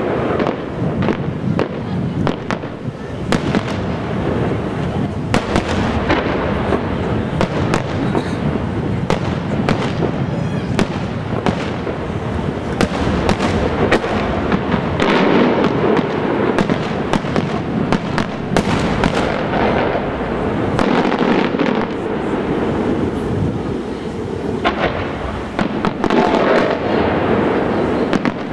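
Aerial firework shells bursting in a dense, unbroken run of loud bangs and crackling, many reports a second.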